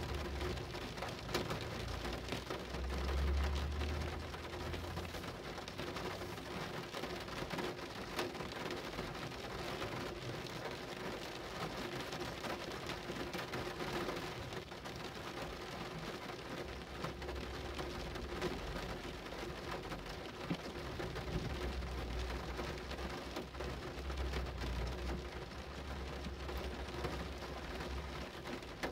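Steady rain falling on a surface, a dense patter of individual drops ticking. A low rumble swells up a few seconds in and again through the second half.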